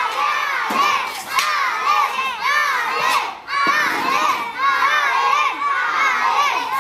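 A crowd of children shouting and cheering, many high voices overlapping throughout. A few sharp knocks from the fighters' wooden practice polearms striking each other cut through the shouting.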